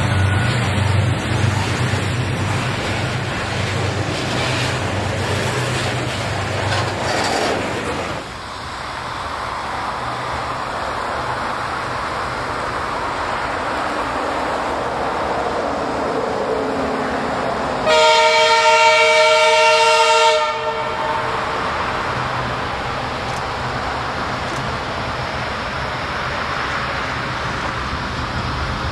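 Coal hopper wagons rolling past close by, a low rumble with wheel clatter. After a cut, a distant approaching locomotive rumbles steadily and sounds its horn once for about two and a half seconds, several notes together.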